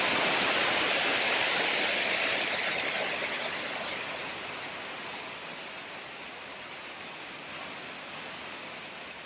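Steady rain, a dense even hiss that slowly fades and then cuts off at the end.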